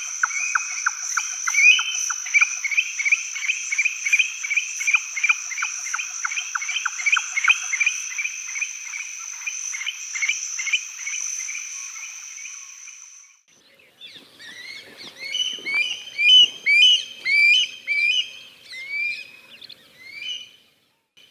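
Rainforest wildlife calls: frog-like calls repeat rapidly, about four or five a second, over a steady high whine, and stop suddenly about 13 seconds in. Then, after a short gap, comes a run of short falling chirps.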